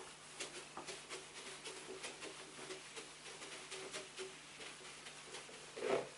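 Whiteboard duster wiping across a whiteboard in many quick, short strokes, erasing the writing. A brief louder sound comes near the end.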